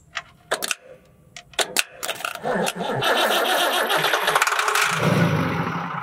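Old Ford farm tractor's diesel engine being jump-started by shorting the starter with a screwdriver: a few sharp clicks, then it cranks and catches about two and a half seconds in and runs loudly before fading near the end.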